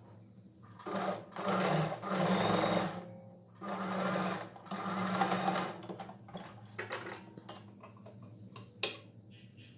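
Sewing machine stitching a seam in two runs of about two seconds each, with brief stops within each run, then a few light clicks.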